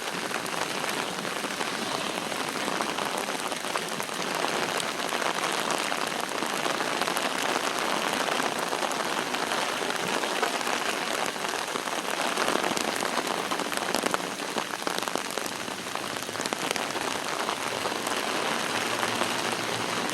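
Moderate rain falling steadily, a dense even hiss made of countless small drop patters.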